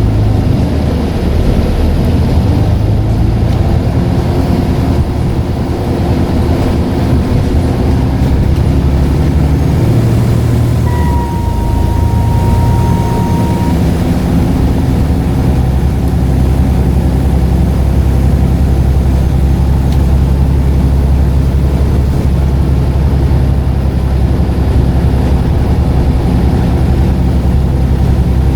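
Scania N94UD double-decker bus's diesel engine running as the bus drives. About eleven seconds in, a steady turbocharger whistle holds one pitch for nearly three seconds.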